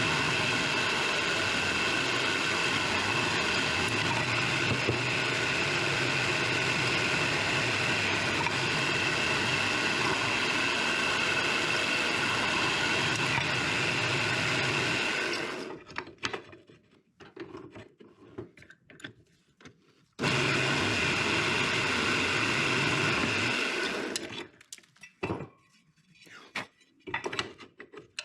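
An electric power tool motor runs steadily with a high whine, winds down about halfway through, then runs again for a few seconds before stopping, with scattered knocks and clatter in the gaps.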